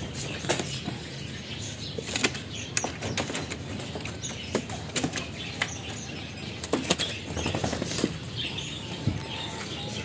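Birds' wings flapping in short flurries, with scattered sharp clicks and knocks.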